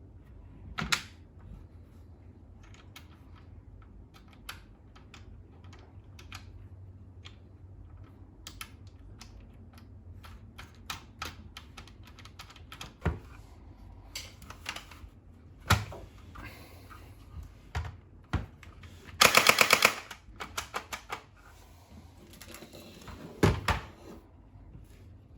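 Scattered clicks and knocks from a plastic toy blaster being handled during unboxing. Near the end comes about a second of rapid, evenly spaced clicking, the loudest sound here, followed a few seconds later by a quick cluster of knocks.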